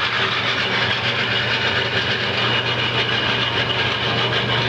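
Wood lathe's electric motor running steadily, just switched on: a steady low hum with a faint high whine over it.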